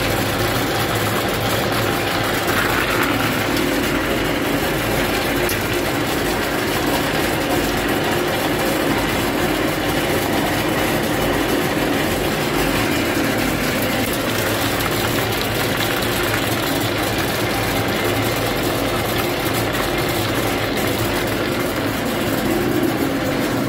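Peanut color sorter machine running, a steady loud mechanical noise with a dense fine rattle of peanut kernels pouring from its outlet chutes.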